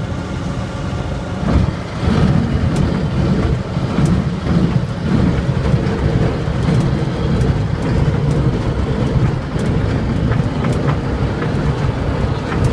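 CTSW microlight touching down on a grass strip about a second and a half in, then rolling out. The wheels and airframe make an uneven, bumpy rumble over the turf, with scattered rattles and clicks, over the steady sound of the engine.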